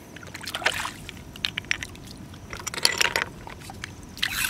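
Shallow seawater splashing and sloshing in several short bursts as hands and metal tongs reach in to pick sea snails off the bottom, with a few sharp clicks among them.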